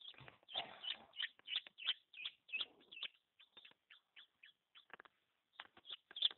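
Newly hatched chicken chick peeping in quick short high calls, about three a second, with a brief rustle about half a second in.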